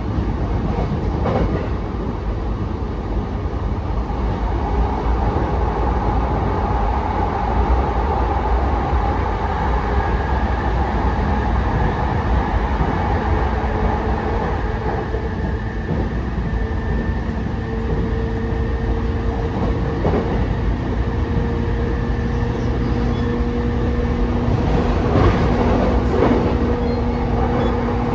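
Inside a JR East E233-5000 series electric train at speed: continuous wheel-on-rail rumble with a few sharp clicks over rail joints. A faint steady whine comes in about halfway through and holds.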